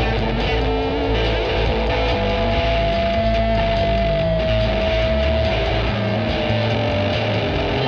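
Psychedelic rock song with distorted electric guitar over a stepping bass line; a long held high note slides slowly down in pitch over the last few seconds.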